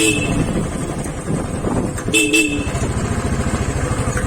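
A motorcycle engine running steadily while riding in traffic, with two short honks of a vehicle horn, one at the start and another about two seconds in.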